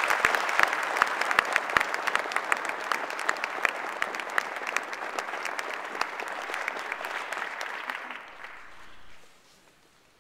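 Audience applauding: a dense patter of many hands clapping that slowly thins and dies away about eight to nine seconds in.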